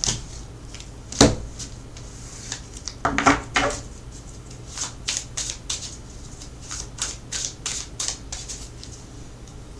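Tarot cards being handled and laid out on a table: a sharp knock about a second in, a cluster of knocks around three seconds, then a run of light clicks and snaps.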